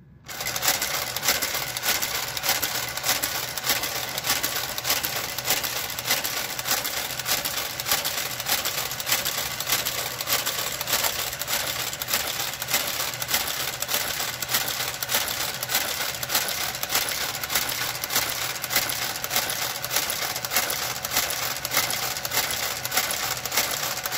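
Brother knitting machine's motor drive starting up and pulling the carriage back and forth across the needle bed. It makes a steady mechanical clatter of fast, even clicks over a low motor hum, beginning just after the start.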